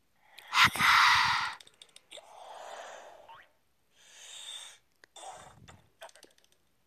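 Cartoon sound effects: a sharp hit with a loud noisy rush about half a second in, then three softer breathy, swishing sounds and a few clicks near the end.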